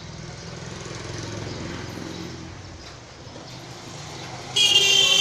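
A motor engine running steadily, swelling and fading slightly, then a sudden loud high-pitched tone cuts in near the end.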